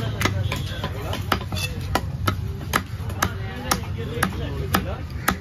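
Knife chopping through fish on a wooden chopping block: a steady run of sharp chops, about two a second.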